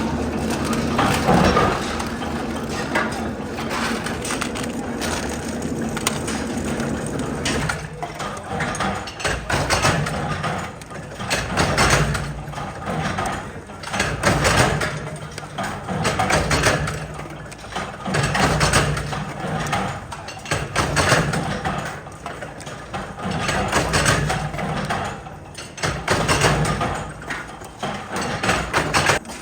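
Factory machinery in a hex-nut production shop, running. A steady din with a low hum gives way, about eight seconds in, to loud mechanical swells repeating about every two seconds.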